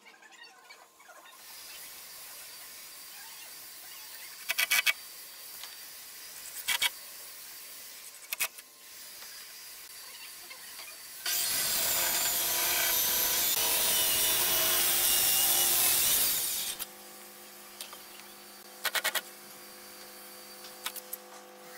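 A handheld circular saw ripping lengthwise through a thick hardwood beam, one steady cut of about five seconds near the middle. A few short, loud bursts come before it.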